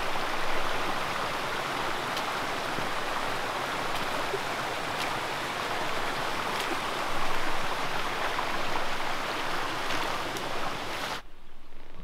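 Small, shallow mountain creek running over rocks, a steady rushing babble that cuts off suddenly near the end.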